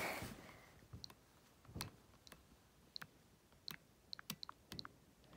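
Nintendo Switch home-menu cursor sounds: about a dozen faint, short, high clicks as the selection steps across the game icons, coming faster near the end.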